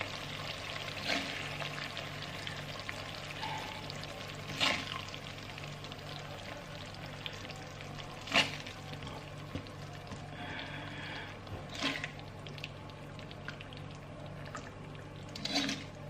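A metal spatula scraping and clinking against a hot pan as cooked rendang is dished out, with faint sizzling and a steady low hum. A few sharp clinks stand out, roughly every three to four seconds.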